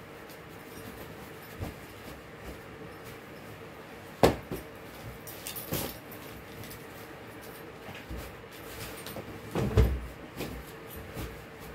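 Bedding being handled as a bed is made: fabric rustling, with a sharp thump about four seconds in and a louder, deeper thump near the end, over a faint steady hum.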